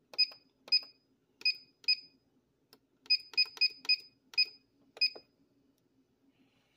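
Weishi No. 1000 timegrapher beeping as its buttons are pressed to step through its settings, such as the lift angle: about ten short high beeps, each with a click. Four come in quick succession around the middle, and the last is about five seconds in.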